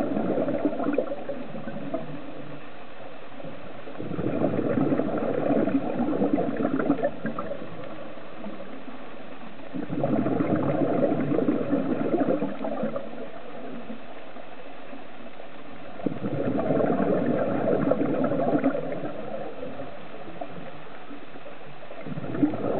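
Scuba diver's exhaled breath bubbling out of the regulator, in bursts of two to three seconds about every six seconds, with a quieter steady underwater hiss between breaths.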